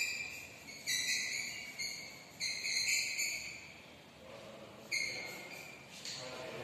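Chalk squeaking on a blackboard during writing: about five short, high squeaks, each starting sharply and fading over about a second.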